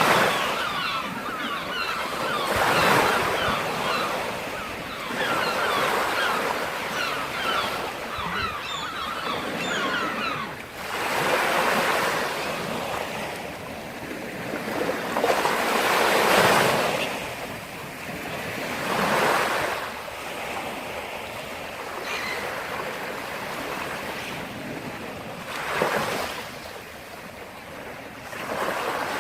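Black Sea surf breaking and washing up the shore, one surge every few seconds, with a crackling hiss as the water spreads and runs back.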